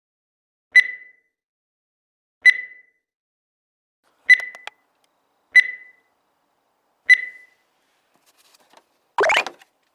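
Five short high beeps, spaced unevenly about one and a half seconds apart, each fading away quickly; a brief noisy burst follows about nine seconds in.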